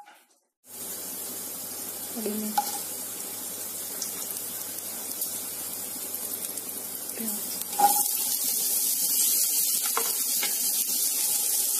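Hot oil sizzling in a kadhai as cumin seeds, garlic, ginger and green chillies fry. About eight seconds in, chopped onions drop into the pan with a clatter and the sizzling gets louder.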